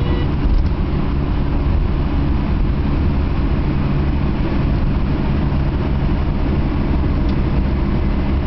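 Simca 1301 Special fitted with a 1501 Special four-cylinder engine, running steadily at cruising speed along with tyre and road noise, heard from inside the cabin.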